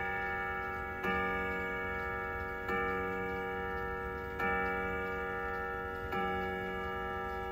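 Howard Miller Jenison wall clock striking the hour at twelve o'clock: the same ringing tone is struck every second and a half or so, four strikes here, each slowly dying away, with the pendulum movement ticking underneath.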